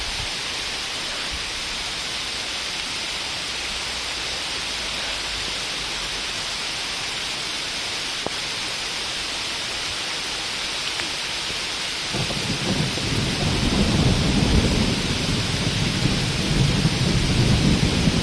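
Steady hiss of heavy rain; about two-thirds of the way through, a low rumble of thunder sets in and builds.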